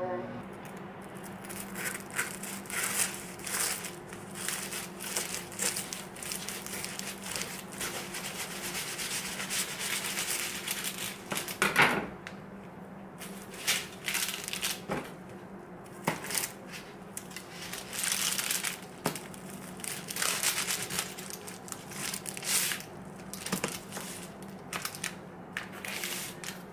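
A knife sawing through the crisp, flaky puff-pastry crust of a baked beef Wellington, crackling and crunching in uneven spells with short pauses. A faint steady hum runs underneath.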